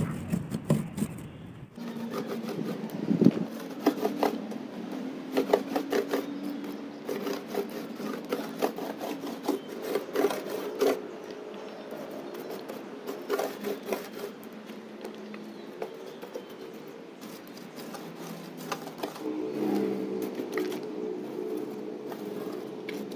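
Paint roller spreading a thick cement-and-sand texture paint over a wooden speaker box. It makes many short sticky clicks and crackles as it rolls and is reloaded from the bucket.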